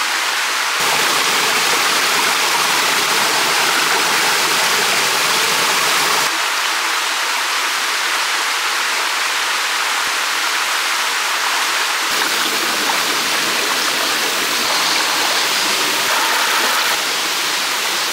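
Shallow mountain stream running over rocks and small cascades, a steady rushing of water.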